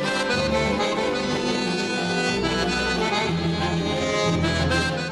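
Background music with an accordion playing over steady bass notes.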